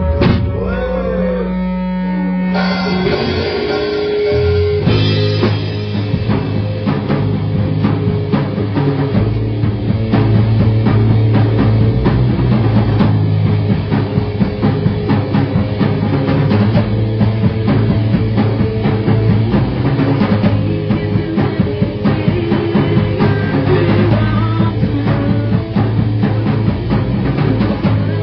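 Live punk band starting a song on electric guitar, bass guitar and drum kit. A few seconds of loose, bending guitar notes over a held bass note come first, then the full band with drums comes in about five seconds in and plays on steadily.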